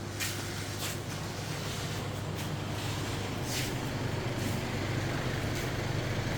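A motor vehicle engine running with a steady low hum, with a few brief hisses over it.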